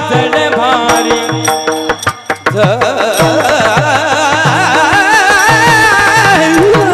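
Kirtan singing in the Bhairavi chaal: a male voice sings an ornamented, wavering melody that climbs to a long held high note, over a steady held accompaniment and a hand drum whose bass strokes slide down in pitch.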